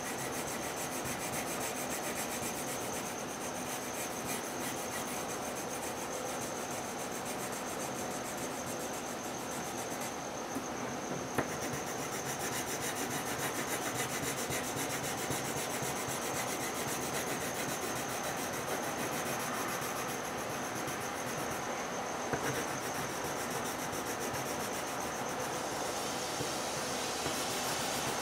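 Coloured pencil rubbing back and forth on paper in steady shading strokes.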